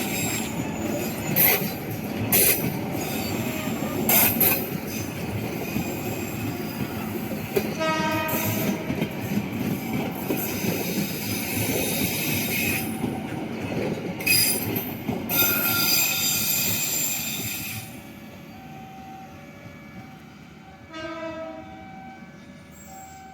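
Passenger train passing close at speed, its wheels clattering and squealing on the rails. A short horn blast sounds about 8 seconds in. The train noise drops away about 18 seconds in, leaving fainter tones and a second brief horn sound near the end.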